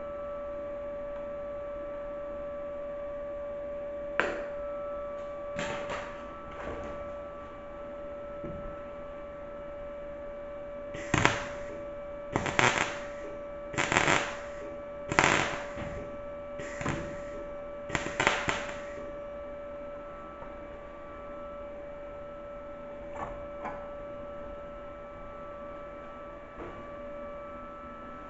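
Arccaptain MIG200 MIG welder laying a run of six short tack welds on sheet metal, each a crackling burst of about a second, about a second and a half apart, over a steady hum. A few short clicks come before and after the run.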